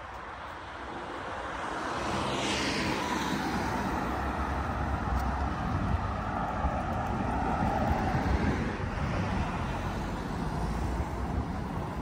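Road traffic: a motor vehicle's engine and tyre noise swells about two seconds in, with a sweep falling in pitch as it comes close, and stays loud over a low rumble.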